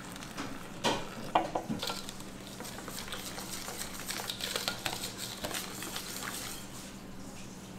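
Metal kitchen utensils clinking, tapping and scraping against pans and dishes while food is stirred, with one sharp ringing clink about a second and a half in. A steady low hum runs underneath.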